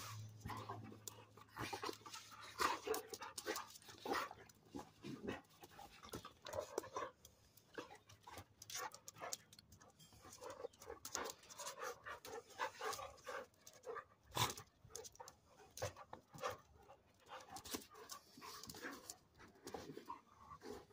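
Two dogs, one a German shepherd, sparring in play. They pant, with irregular short scuffling and mouthing sounds as they grapple.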